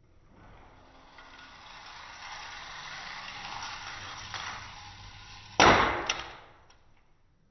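Die-cast toy car rolling along an orange plastic track, its rolling noise building over the first few seconds and then fading. About five and a half seconds in comes one loud sharp crash as the car hits something, followed by a lighter click.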